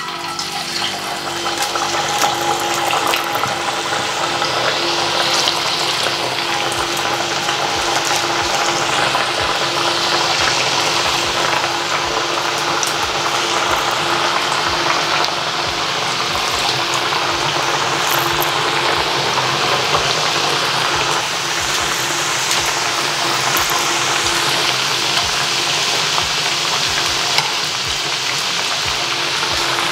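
Thattai vadas (flat rice-flour fritters with chana dal and peanuts) deep-frying in hot oil in a stainless steel pan: a steady, dense sizzle with many small pops, starting as the first vada is slid into the oil.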